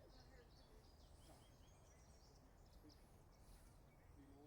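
Near silence outdoors: faint, scattered high chirps of distant small birds over a low steady rumble.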